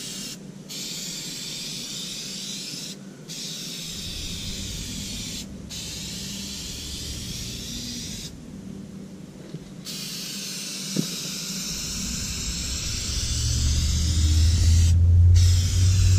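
Aerosol spray can hissing in long bursts with short breaks as paint is sprayed. Over the last few seconds a low vehicle rumble builds and becomes the loudest sound.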